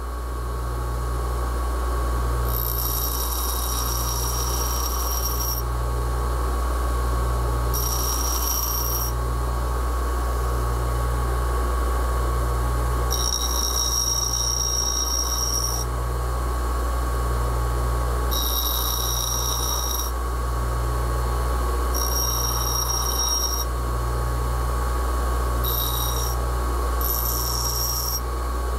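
Bench grinder running steadily with a low hum that pulses about once a second. The hardened O1 tool steel bit is pressed against the wheel in repeated short passes, each adding a high ringing whine that lasts one to three seconds, about eight times.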